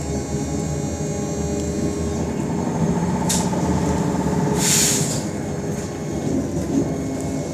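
Interior of a BKM 221 trolleybus on the move: a steady rumble with a fixed whine from the drive. Two short hisses of air come about three and five seconds in.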